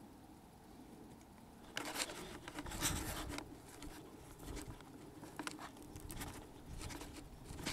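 Quiet outdoor background, then from about two seconds in, irregular scuffing and rustling: footsteps on grass and handling noise from the camera being carried.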